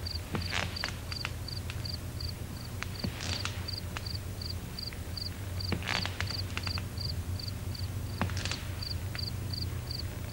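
A cricket chirping at an even pace, about three short high chirps a second, over a steady low hum. A few brief rustling bursts and clicks come and go.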